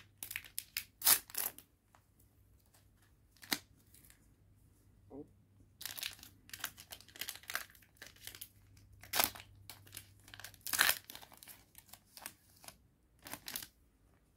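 Foil trading-card booster pack wrapper torn open at the top in short rips, then crinkling in bursts as it is pulled apart and the cards slide out.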